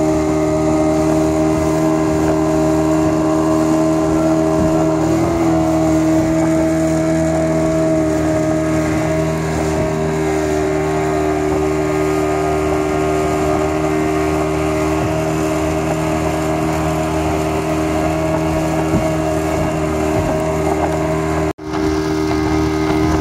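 Speedboat engine running steadily at speed, a constant drone with the rush of wind and water over it. The sound breaks off for an instant near the end, then carries on as before.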